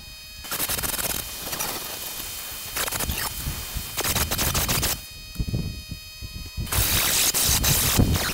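Angle grinder running, its abrasive disc grinding the end of a rusty steel beam in several rough bursts over a steady motor whine. The grinding eases off about five seconds in, then comes back loudest near the end.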